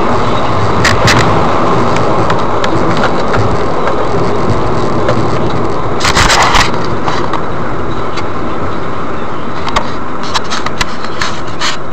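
Steady tyre and road noise of a car driving on a wet road, heard from inside the cabin. Short sharp clicks and crackles are scattered through it, with a dense cluster about six seconds in and several more near the end.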